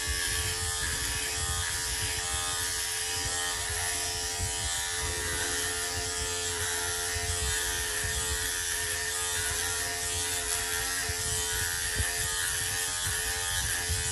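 Braun Silk-épil 9 Flex epilator with its shaver head attached, running on a lower speed setting while it shaves underarm hair: a steady motor hum with an even pitch.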